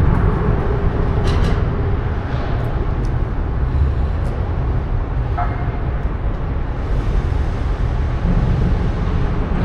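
Steady low rumble of city street traffic, with a brief pitched chirp about five and a half seconds in.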